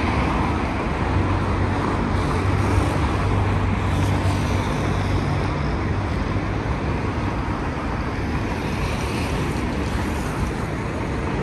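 Street traffic on a busy city avenue: a steady wash of passing vehicles, with a low hum strongest in the first half.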